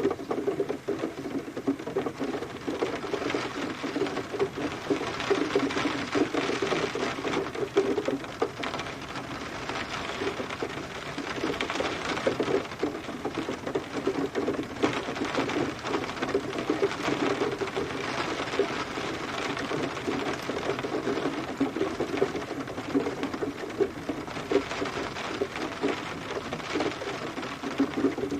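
Steady rain, a dense, continuous tapping of many drops with no let-up.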